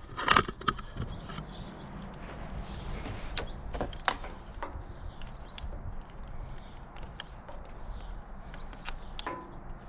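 Motorcycle plastic trim parts being pulled off and handled: a clatter of clicks and knocks at the start, then scattered light clicks.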